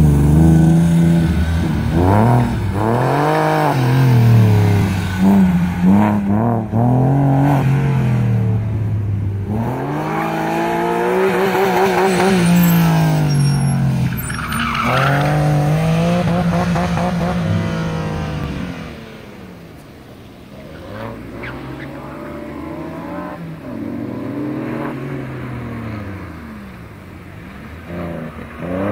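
Porsche 996 Carrera 4S's 3.6-litre flat-six revving hard and backing off again and again as the car accelerates and slows through an autocross course, with tire squeal at times. It grows fainter about two-thirds of the way through as the car moves farther away.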